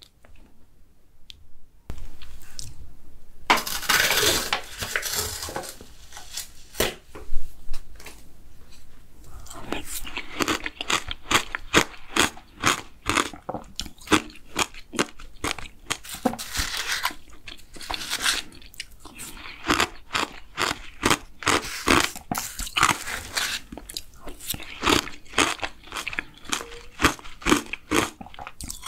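Close-miked eating of injeolmi bingsu, a cup of shaved ice, with a spoon: crunching and chewing with many crowded small clicks and scrapes. About two seconds in there are a few seconds of rustling and scraping before the eating sounds set in.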